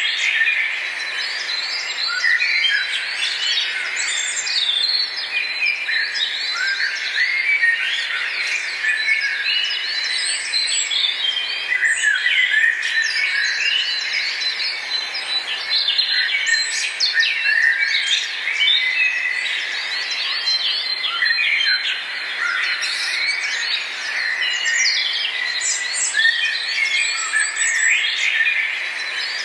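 Many small birds chirping and twittering at once, a dense, continuous chorus of short high calls overlapping one another.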